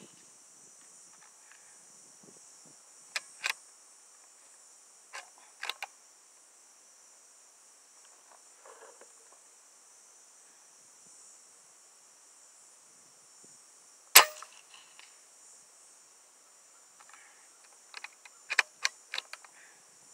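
One shot from a Hatsan Flash Pup .22 PCP air rifle, a single sharp crack about two-thirds of the way in. A few softer clicks come before and after it, from the rifle being cocked and worked between shots. A faint steady high hiss runs underneath.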